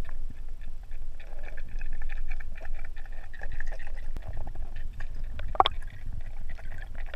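Water sloshing and gurgling over a steady low rumble, with a stream of small crackling bursts and one sharper splash-like burst about five and a half seconds in.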